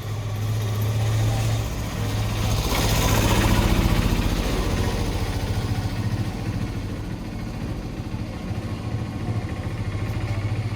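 Motor vehicle engine running with a steady low hum, swelling louder about three to four seconds in and then easing off.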